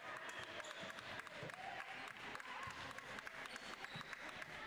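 Spectators clapping, with crowd chatter; the claps come as many scattered sharp clicks.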